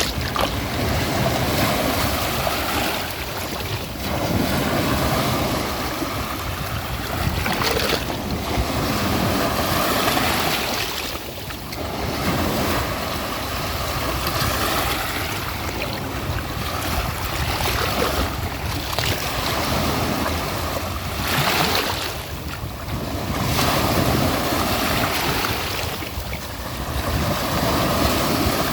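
Ocean waves washing onto a shore, a continuous surf that swells and eases every few seconds.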